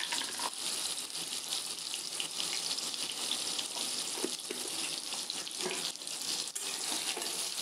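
Soaked soya chunks frying in hot oil in a wok: a steady sizzling hiss with scattered small pops.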